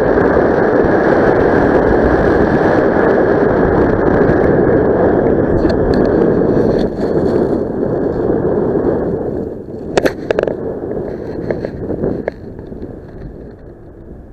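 Wind rushing over the microphone in flight, a loud steady rumble that eases after about nine seconds, with a few sharp crackles about ten seconds in.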